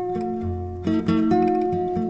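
Instrumental music: held chords over a bass line, the chord changing just under a second in.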